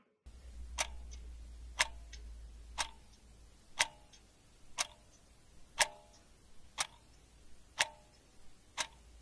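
Clock ticking steadily, about one tick a second, each tick a sharp click with a short ring.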